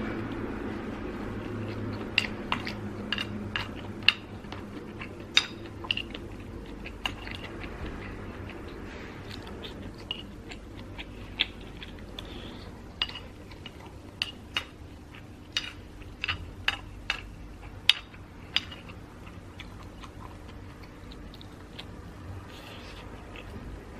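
A person chewing and eating close to the microphone: irregular wet mouth clicks and smacks, a few louder than the rest, over a faint steady hum.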